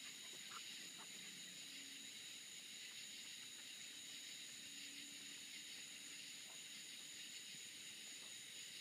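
Near silence: a faint, steady high-pitched hiss, with a faint low hum drifting in now and then.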